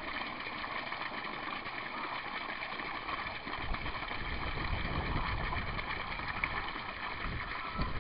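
Water from an aquaponics U-siphon's outlet pipe pouring steadily into a plastic tub, splashing and churning the surface: the siphon running at full flow. A low rumble joins in about halfway through.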